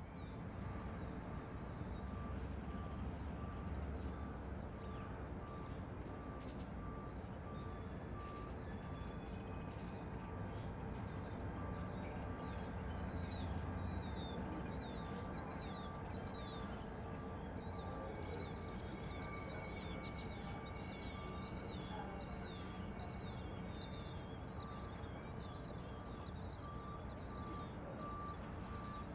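Outdoor ambience: a steady low rumble with runs of high, quick chirps repeating through it, and a faint beep sounding on and off at an even pace.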